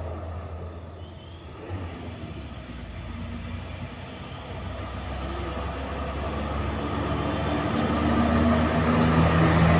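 A heavy vehicle's engine droning low and growing steadily louder as it approaches up the hill.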